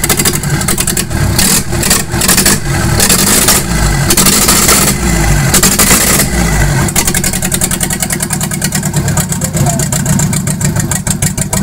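Nissan FD35 four-cylinder diesel engine running just after a cold start, uneven and surging for the first several seconds, then settling into a steady, fast diesel clatter at idle.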